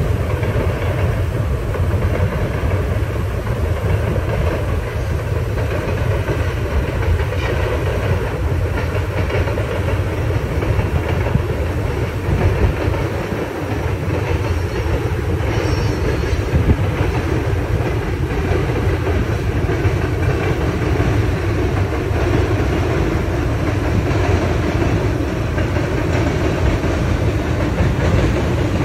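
Freight train of hopper cars rolling across a steel truss bridge: a steady rumble of wheels on rail and bridge deck.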